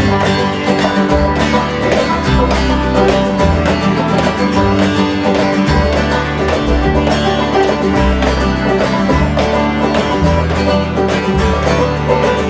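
Live band playing an instrumental passage of a country-folk song: plucked strings over a moving bass line, with no singing.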